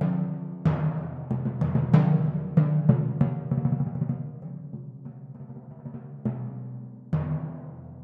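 Four timpani played solo with sticks: a quick run of ringing strokes starting about half a second in, then the pitched notes ring on and fade under a few soft strokes, with stronger strokes returning near the end.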